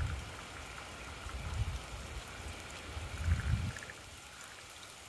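Steady rain falling, an even hiss, with a few low rumbles, the strongest about three and a half seconds in.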